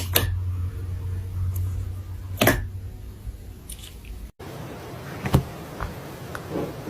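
Slime being handled: sharp, sticky pops and clicks at irregular intervals. About four seconds in, the background changes abruptly.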